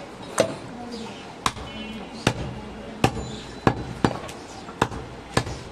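Large butcher's knife hacking through goat meat onto a wooden chopping block: eight sharp chops, unevenly spaced, about one every two-thirds of a second.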